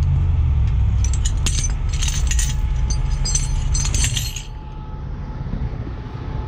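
Heavy steel tow chain and chain binder clinking and rattling as they are handled, over a low steady engine rumble. The clinking stops and the level drops about four and a half seconds in.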